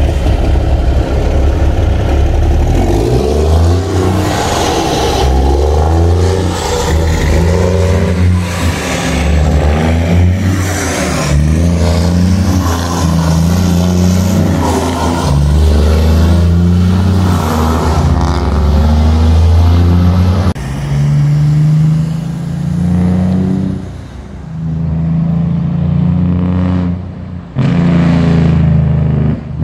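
Heavy truck's diesel engine pulling a lowbed trailer, revving up and dropping back again and again as it shifts up through the gears. About two-thirds through the sound changes suddenly to a second truck's diesel engine running nearer and more unevenly.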